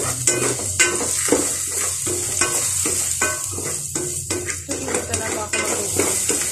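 Food sautéing in a pan with only a little oil, sizzling steadily while a spatula stirs and scrapes against the pan with irregular clacks.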